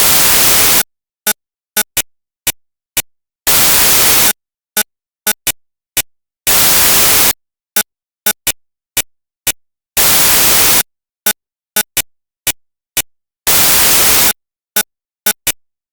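Five bursts of loud static hiss, each under a second long and about three seconds apart, with sharp clicks ticking in between and dead silence in the gaps; the pattern stops shortly before the end.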